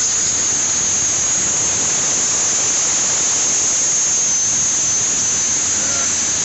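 Compressed air rushing from a 3/4 inch hose with a PVC pipe nozzle, held wide open at about 80 psi to blow chaff out of a baler; a steady, loud, high hiss.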